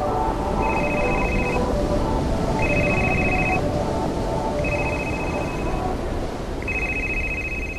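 A telephone ringing: a high, trilled electronic ring about a second long, repeating every two seconds, four rings in all. A steady rushing noise runs underneath.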